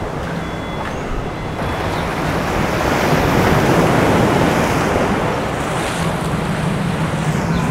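Rushing water and wind on the microphone over a steady low hum. The rush swells to its loudest about three to four seconds in, then eases.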